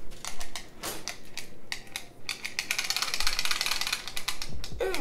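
Steel tape measure blade being drawn out of its case, a fast run of ratchety clicks lasting about two seconds, after a few separate clicks.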